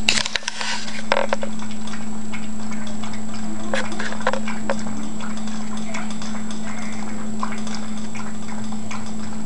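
Shih tzu eating from a stainless steel bowl on a tile floor: scattered crunches and clinks, over a steady low hum.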